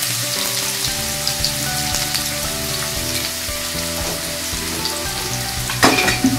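Chopped onions sizzling steadily in hot oil in a kadai, just after being added. A single brief knock near the end.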